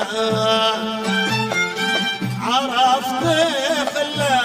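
Lahji Yemeni folk song: a male voice and bowed strings carry an ornamented, wavering melody over a steady low drum beat, a little under two beats a second.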